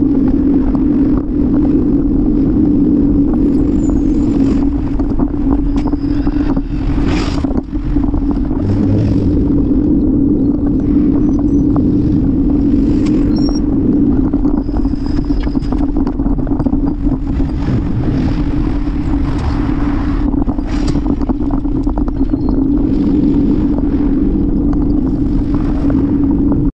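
Steady rumble of wind and road noise on the microphone of a camera riding on a moving bicycle, with a few brief knocks from bumps.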